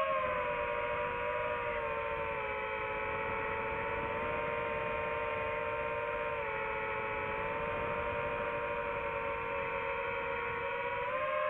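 FPV drone motors and propellers whining steadily, the pitch dipping a little twice and climbing again near the end as the throttle changes.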